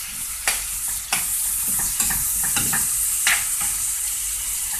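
Diced chicken with green and red sweet peppers and onion sizzling in a non-stick frying pan while being stirred with a spoon, the spoon scraping and knocking against the pan several times over the steady sizzle.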